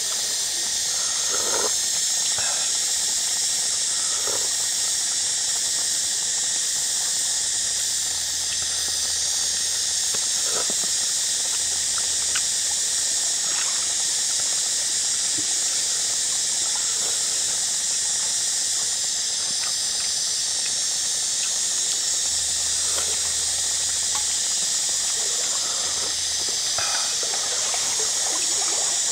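Steady high-pitched hiss of outdoor background noise, with a few faint, short sipping and slurping sounds as soup is sipped from a bowl and eaten with chopsticks.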